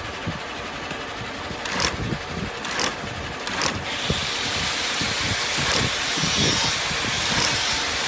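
Industrial shoe sewing machine running, stitching through thick leather: a steady motor hum with fast needle strokes. Three sharp clicks come in the first half, and about halfway through the sound gets louder and brighter.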